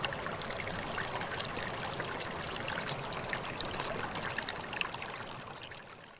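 Water running and splashing steadily, fading out at the very end.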